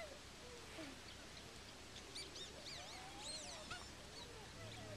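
A troop of geladas calling faintly, many overlapping calls that rise and fall in pitch, with a flurry of higher, looping calls in the middle.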